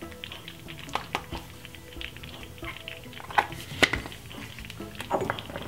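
Soft background music, with a few light clinks of a metal spoon, the loudest two close together past the middle.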